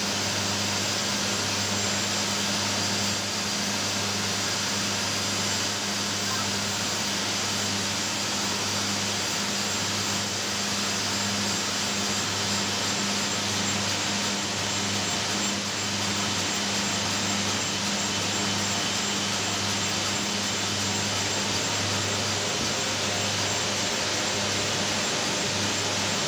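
A 15 MW condensing steam turbine-generator running: a loud, steady rushing hiss over a constant low hum.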